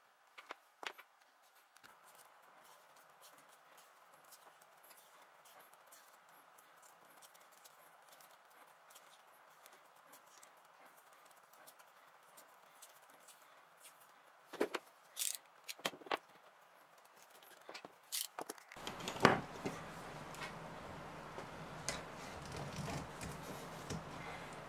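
Vinyl electrical tape being peeled off its roll and wound around a cable splice: faint crackling and ticking, with a few louder peeling sounds about two-thirds of the way through. In the last few seconds there is a sharp click, and a steady low background noise comes in.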